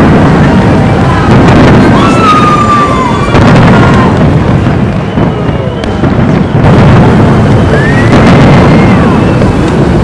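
Large fireworks display: a dense, continuous barrage of bangs and rumbling booms, with a few whistling tones sounding over it.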